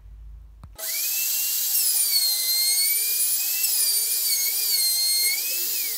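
Makita trim router running at high speed, a loud high whine whose pitch wavers up and down as its bearing-guided bit cuts peroba rosa wood; it starts about a second in and stops near the end.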